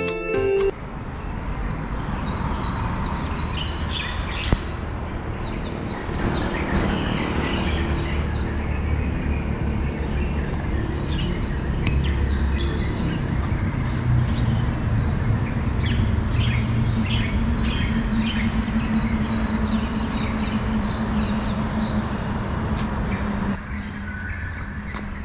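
Small birds chirping in quick repeated series, over a steady low rumble of outdoor ambience with a thin steady high tone underneath.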